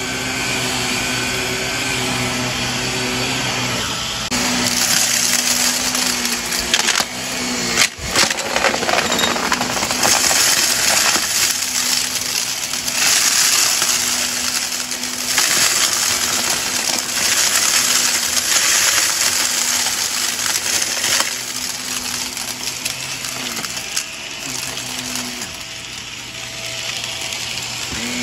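Shark upright vacuum cleaner running on carpet with a steady motor drone. From about four seconds in, repeated bursts of crunching and rattling are heard as a mix of small hard debris is sucked up.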